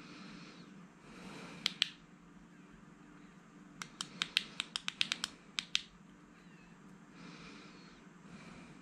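Sharp clicks from a metal flashlight being handled and its sections twisted together: two clicks, then a quick irregular run of about ten, with soft rubbing of hands on the body.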